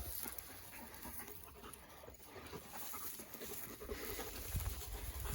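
A dog panting faintly, a little louder near the end.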